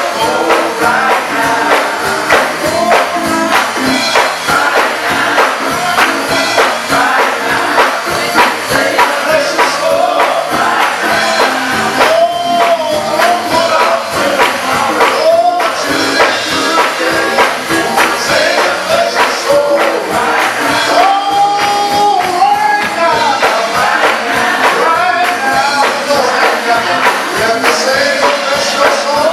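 Gospel choir singing over fast, steady tambourine shaking and music.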